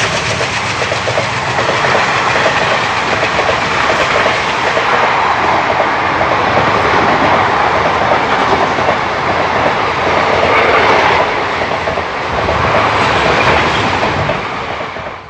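A train running steadily along the track, its wheels clattering over the rail joints.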